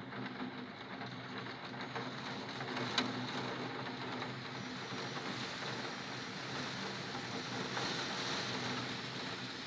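Heavy rain falling outside and striking the window glass, with a low steady hum underneath and one sharp tick about three seconds in.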